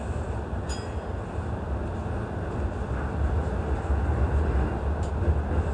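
Running noise of a JR East E233 series 0 electric train heard from inside at the front: a steady low rumble of wheels on rail as it pulls away and picks up speed, slowly growing louder, with a couple of faint clicks.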